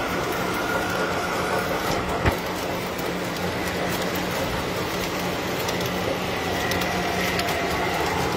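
Tinplate toy electric train running on metal track: a steady rolling rattle of wheels with a constant hum, and one sharp click about two seconds in.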